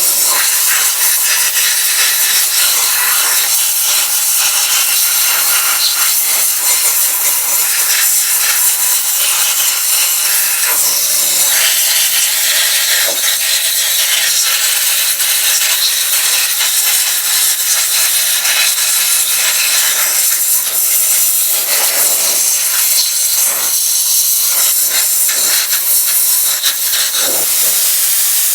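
Compressed-air media blaster firing crushed walnut shells at an aluminum cylinder head to strip off carbon: a loud, steady hiss that wavers slightly but does not stop.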